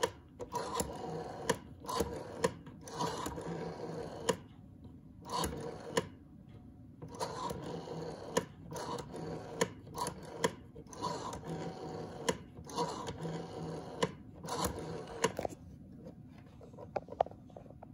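Rotary dial of a Western Electric 500 telephone, freshly lubricated, being pulled round and released digit after digit. Each time it spins back with a smooth whir and a quick run of clicks as it pulses out the number.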